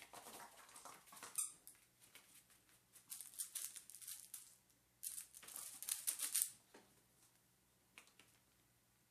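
Small dog (Papillon) pawing and scrabbling at blankets and couch cushions, in about three spells of scratchy rustling, each a second or two long.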